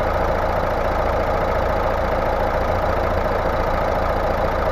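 Mazda car engine idling steadily, heard up close in the open engine bay.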